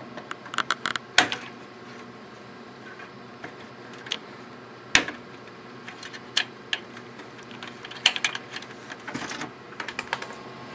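Scattered small clicks and taps of fingers working a CR2032 coin-cell battery out of its socket on a desktop computer motherboard. The sharpest single click comes about halfway through.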